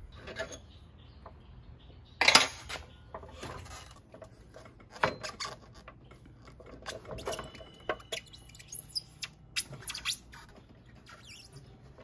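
Scattered metal clinks and knocks from a Honda PCX scooter's front axle bolt, wheel spacer and wheel hub being handled as the front wheel is taken off the fork. The loudest knock comes a little over two seconds in, with a quicker run of clinks later on.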